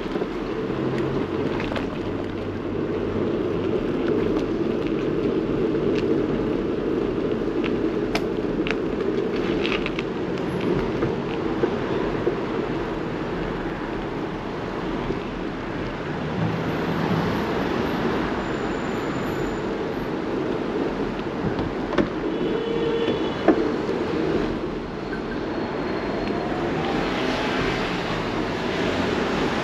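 Steady rumble of road and wind noise from riding a bicycle, with traffic going by and a few faint clicks.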